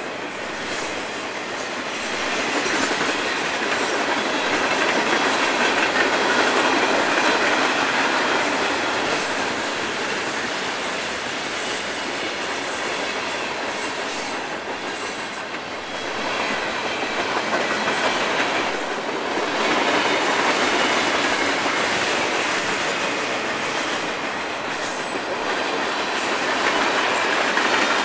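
Freight train of boxcars and covered hopper cars rolling past, the steel wheels making a continuous rumbling rattle on the rails that swells and eases in loudness as the cars go by.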